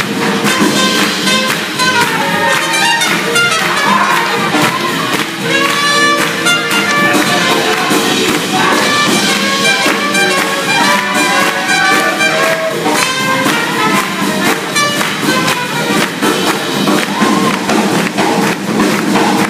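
Live swing jazz band playing an up-tempo number: trumpet lines over guitar and drums with a steady beat.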